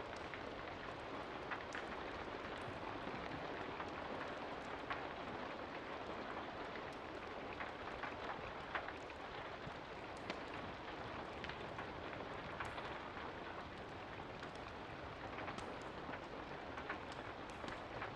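Steady rain falling, an even hiss, with irregular sharp pops and ticks scattered through it, as from a wood fire crackling in a fireplace.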